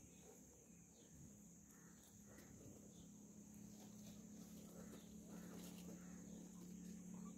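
Near silence: a faint steady low hum and a steady high hiss, with a few faint short scuffs.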